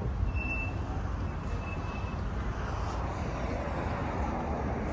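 Steady outdoor road-traffic noise, a continuous low rumble with a hiss above it.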